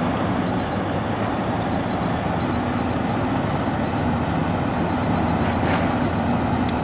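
Ludlum Model 30-6 radiation detector's audio chirping: short high beeps in small scattered groups, then coming quickly and evenly from about five seconds in as the reading rises. Under them runs a steady low engine drone.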